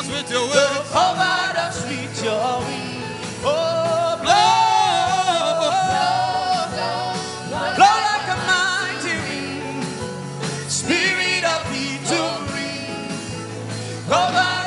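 Gospel worship song: a singer holding long wavering notes without clear words, over a steady instrumental backing with a held bass.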